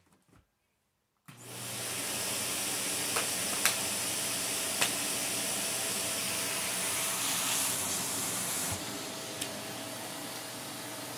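Vacuum cleaner switched on about a second in, its motor quickly spinning up to a steady whooshing run with a low hum. A few sharp clicks come through in the first seconds of the run, and the high hiss eases slightly near the end.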